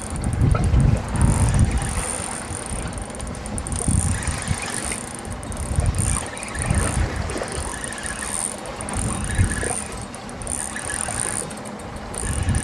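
Wind gusting on the microphone on an open boat at sea, in uneven swells, with a thin, steady high-pitched whine that cuts out and returns several times.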